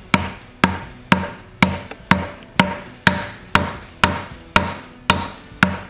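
Light, evenly spaced taps of a hammer handle on a piston crown, about two a second, easing the piston through a ring compressor into the cylinder of a Wisconsin engine.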